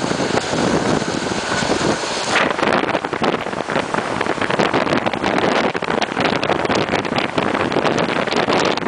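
Passenger train running at speed, heard at an open carriage window: a constant rush of wind on the microphone with the rattle and clatter of the carriage on the track. The high hiss drops away about two and a half seconds in.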